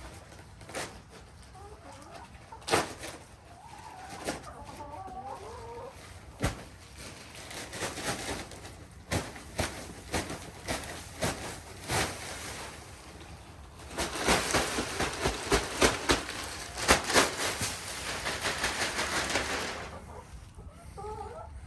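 Hens clucking softly, then bedding being scraped and spread in a chicken coop, with sharp scraping clicks. A dense stretch of scraping and rustling, loudest from about two-thirds of the way in, stops shortly before the end.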